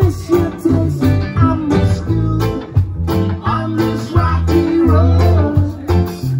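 Live band playing a song, with guitar over a heavy, moving bass line.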